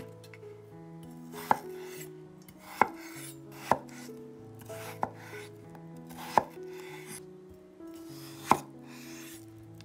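Chef's knife cutting peeled potatoes on a bamboo cutting board: about six sharp knocks of the blade striking the board, irregularly spaced a second or two apart.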